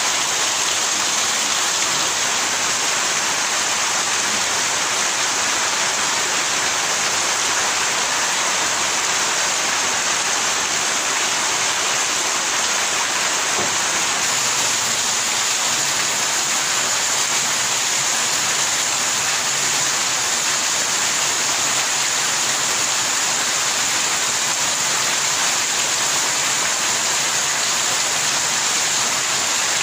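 Heavy rain falling steadily on a corrugated roof, with water pouring off the roof edge in streams.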